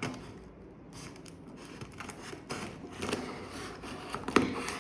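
Hands handling a cardboard parcel during unboxing: rustling, scraping and light clicks, with a sharp click near the end.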